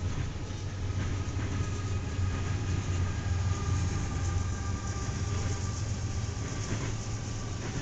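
Freight cars of a passing mixed freight train rolling by: a steady low rumble of steel wheels on rail, with faint high whining tones over it.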